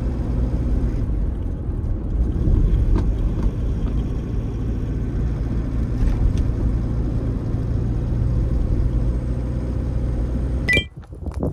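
Car driving on a paved road, heard from inside: a steady low rumble of engine and tyres. Near the end it cuts off abruptly with a short click.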